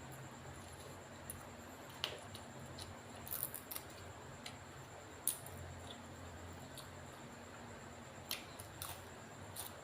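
Scattered light clicks and taps of food preparation, a sharper one about five seconds in and a cluster near the end, over a steady low hum.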